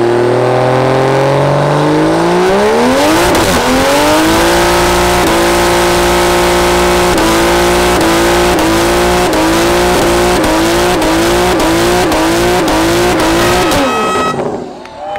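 A car doing a burnout. The engine revs climb over the first three seconds and hold high while the spinning tires squeal, then bounce off the rev limiter about one and a half times a second before the revs drop away near the end.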